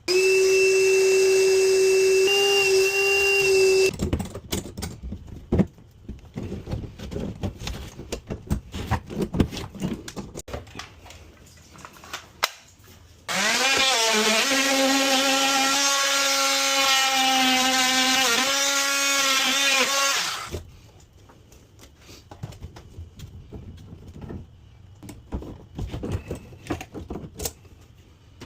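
Handheld power tool running in two bursts, one about four seconds long at the start and a longer one about halfway through that winds up in pitch before holding steady. Between and after the runs there are irregular knocks and clicks of hand work.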